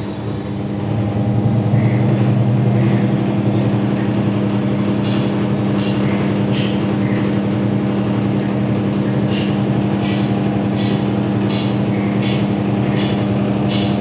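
Amazon Basics 6.5 kg fully automatic top-loading washing machine running its final spin: a steady motor and drum hum that builds over the first second or two, then holds at an even pitch.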